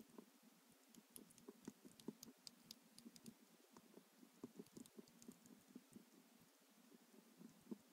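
Near silence with many faint, irregular small clicks and ticks from two-week-old hamster pups stirring in their paper-bedding nest.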